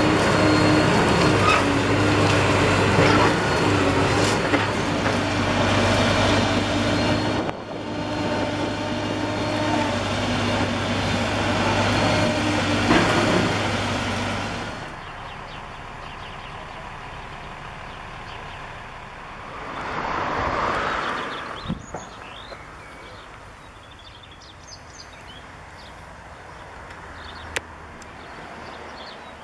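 Hydraulic excavator running, its demolition crusher working against the reinforced-concrete tank of a water tower: a steady engine drone with crunching, crumbling concrete. About halfway through this drops away to a quieter steady background, with a brief swell of noise a few seconds later and a single sharp click near the end.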